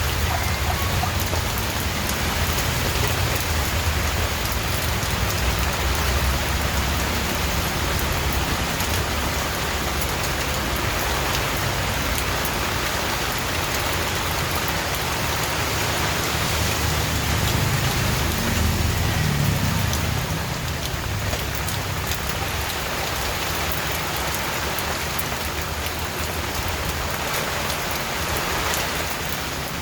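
Steady heavy rain falling on a surface, a dense even hiss, with a low rumble underneath that swells about two-thirds of the way through and then fades.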